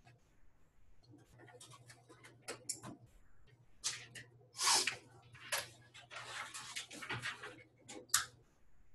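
Sheets of paper being slid and smoothed on a desk by hand: a string of rustles and scuffs, loudest a little under halfway through, then a pen set down and writing on the paper near the end. A faint steady low hum runs underneath.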